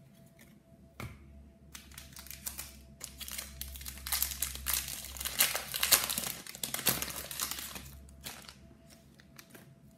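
A shiny foil trading card pack being torn open and crinkled in the hands: a dense crackling that starts about a second in, is loudest in the middle and eases off near the end.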